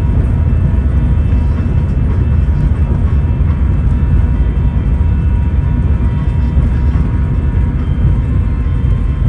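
Airbus A350 cabin noise while the airliner rolls on the ground just after landing: a loud, steady low rumble from the wheels and airframe, with faint steady tones above it.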